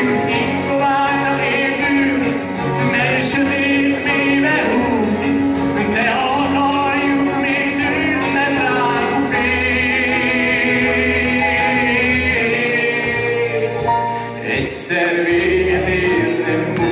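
A male singer sings through a microphone over keyboard accompaniment, with long held notes sung with vibrato midway through.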